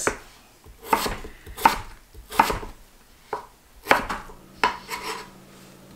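A chef's knife chopping peeled potatoes on a wooden cutting board. The blade knocks through onto the board about seven times, at an unhurried pace of a little under one cut a second.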